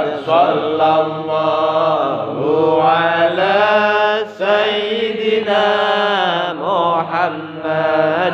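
Men chanting sholawat in long, melodic phrases that glide up and down in pitch, with short breaks between phrases.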